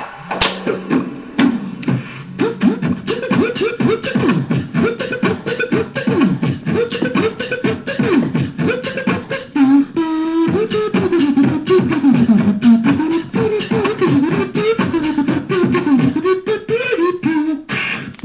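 A person beatboxing: fast, closely spaced vocal drum clicks and snares with a hummed bass line sliding up and down. About ten seconds in, a hummed melody comes in over the beat.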